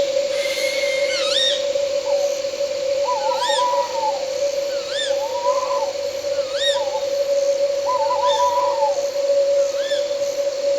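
Owl calling repeatedly: short rising-and-falling calls about every second and a half, with lower wavering calls among them. Behind it runs a steady one-pitch drone of night insects.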